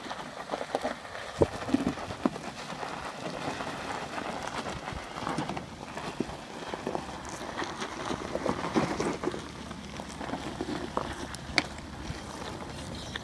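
Chevrolet Astro van crawling over rocky gravel: tyres crunching stones, with irregular scraping and knocking from under the van. The uploader puts the noise down to a linkage bar rubbing on the main pulley because of worn-out motor mounts.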